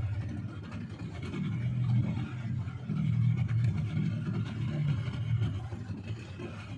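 Small fishing boat's motor running at trolling speed, a low drone that swells and fades.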